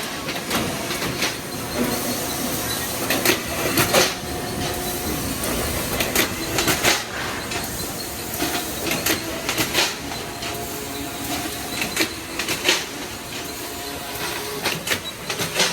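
Automatic can body welding machine running: a steady hiss and machine noise, broken by frequent sharp metallic clicks and clanks as the can bodies are handled.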